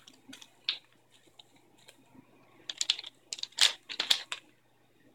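Plastic wrapper of a chocolate-coated ice cream bar crinkling in a run of short, sharp crackles, a few early on and most bunched together past the middle.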